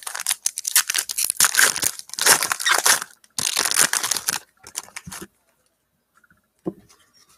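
Foil trading-card pack wrapper being torn open and crinkled, loud rustling in two stretches over the first four seconds or so, then a few small rustles and near quiet.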